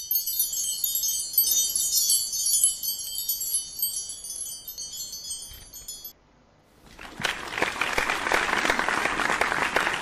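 A bright, high chime sound effect of many quick tinkling notes that stops abruptly about six seconds in. After a short gap an audience begins applauding.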